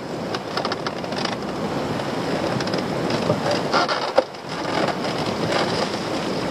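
Wind buffeting the microphone over the wash of a choppy sea, with bursts of rattling knocks from a lobster pot being handled, about half a second in and again around four seconds.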